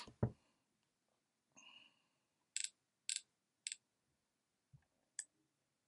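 Sharp clicks of a computer mouse: three about half a second apart, then one more about a second and a half later, in an otherwise quiet room.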